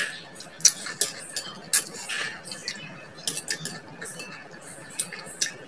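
Chopsticks clicking and scraping against a ceramic bowl while eating, a handful of sharp, irregular taps.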